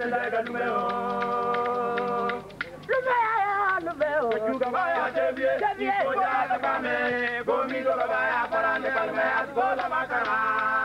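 Voices singing without instruments: a long held note for about the first two seconds, then a wavering melody that rises and falls in pitch.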